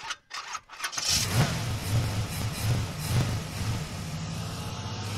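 An engine starting: a few sharp clicks, then it catches about a second in, surges several times and settles to a steady run.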